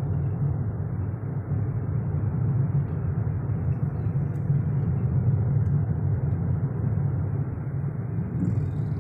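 Steady low rumble of a car driving, heard from inside the cabin: engine and road noise with no knocks or clunks. The car is on a test drive after a full engine rebuild.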